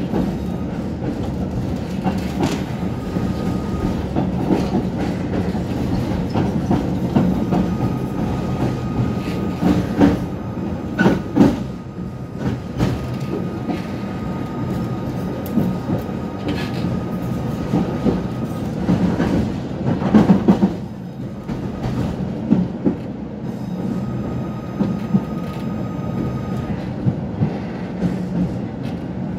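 Tatra-Yug K1M8 tram under way, heard from inside the passenger saloon: a continuous rumble of the running gear and wheels on the rails, with several sharp knocks and clatter. A thin, steady high whine comes in twice for several seconds.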